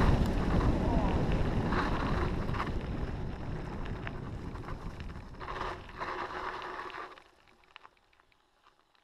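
Wind buffeting the microphone and mountain bike tyres rumbling over a dirt forest track on a fast downhill, fading as the bike slows. The noise drops off sharply about seven seconds in, leaving only a few faint clicks.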